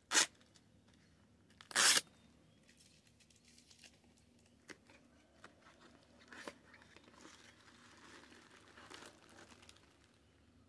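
A small cardboard box being torn open: two short loud rips, one right at the start and one about two seconds in, then quieter rustling and crinkling of the packaging from about six seconds in.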